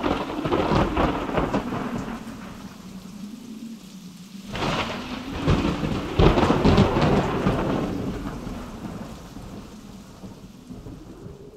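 Thunderstorm: steady rain with two long rolls of thunder, the first at the start and the second about four and a half seconds in, each rumbling and slowly dying away.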